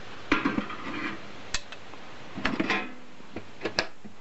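Steel pliers clinking and scraping against the metal of a small furnace's chamber, then the furnace's metal door being closed, in a few groups of sharp metallic clanks and rattles.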